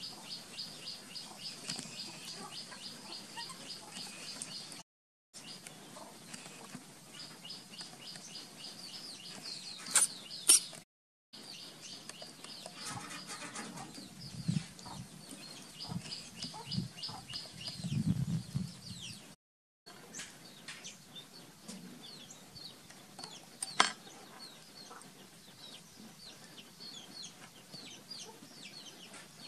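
A steady run of rapid, high-pitched animal chirps or peeps. A few sharp knocks, the loudest sounds, come about ten seconds in and again near twenty-four seconds, with softer low thuds in between. The sound drops out completely three times, for a moment each.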